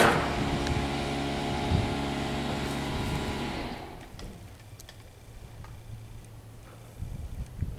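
An engine running steadily, fading out about four seconds in and leaving a faint low hum. A couple of knocks near the end.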